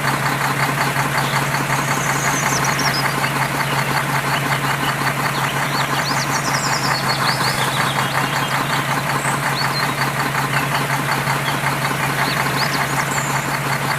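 An engine or motor running steadily with a fast, even knocking rhythm, with birds chirping faintly over it.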